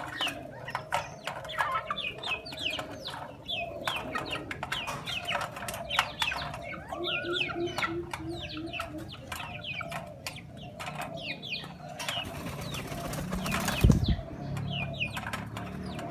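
A flock of chickens and pigeons feeding from a metal dog bowl on concrete: quick pecking taps on the bowl and ground, many high falling peeps, and a short run of low clucking calls. Near the end there is a flurry of wing flapping that ends in a loud thump.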